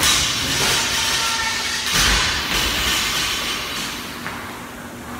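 Air rowing machine's fan flywheel whooshing with each hard drive stroke: two surges about two seconds apart, easing off towards the end.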